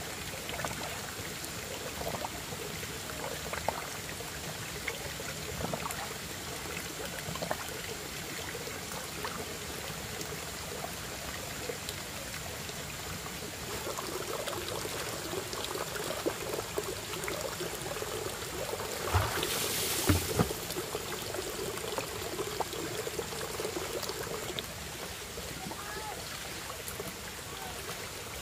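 Running water trickling and pouring, with scattered small knocks, and a brief louder burst about twenty seconds in.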